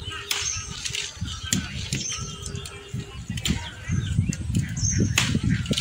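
Lemon-tree leaves and branches rustling and crackling as they are handled, growing louder a little past halfway. Over it, a bird gives a short, high call that repeats about every two seconds.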